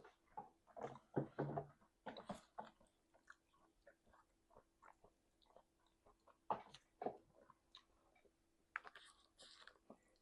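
Close-miked chewing and mouth sounds: wet smacking and biting in irregular clusters, with quieter gaps between.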